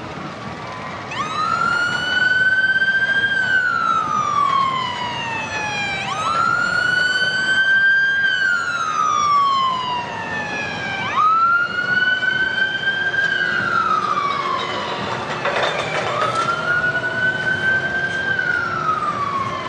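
Emergency vehicle siren wailing, starting about a second in: four slow cycles, each rising quickly, holding briefly, then sliding down over a few seconds.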